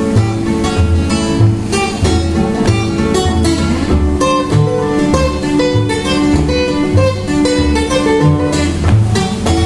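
Acoustic guitar playing an instrumental passage without singing: picked melody notes over low bass notes that pulse in a steady, regular rhythm.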